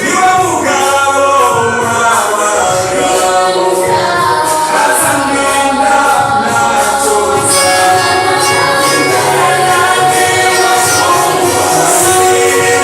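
Church choir singing a gospel song with musical accompaniment, voices in harmony.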